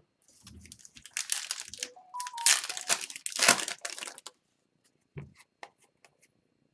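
Trading-card pack wrapper being torn open and crinkled for about four seconds, with a few short rising tones in the middle. Then a few light clicks as the cards are handled.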